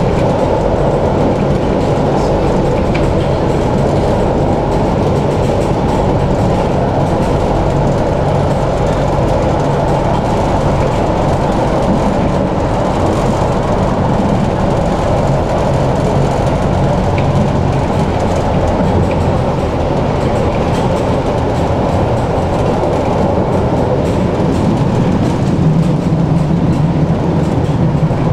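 Tram running along its track: a steady rumble of wheels on rails, with a low hum underneath.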